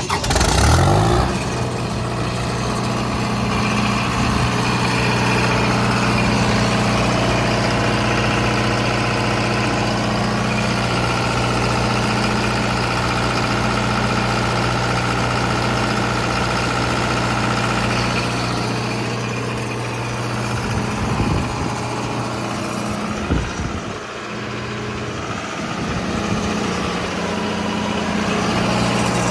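John Deere 4.5-litre diesel engine of a 45 kW generator catching and rising up to speed in the first second, then running steadily.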